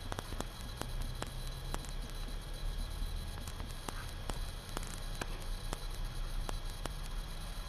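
Crackling static: irregular sharp clicks over a steady low hum and hiss.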